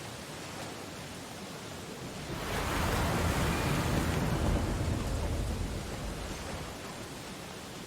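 Ocean surf: a steady wash of water, with a wave breaking about two and a half seconds in, rising suddenly and then fading away over a few seconds.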